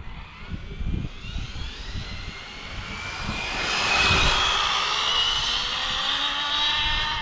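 Arrma Limitless RC speed-run car's electric motor and drivetrain whining under hard acceleration, with tyre and air hiss. The whine rises in pitch for about three seconds, then holds high and eases off slightly before stopping near the end.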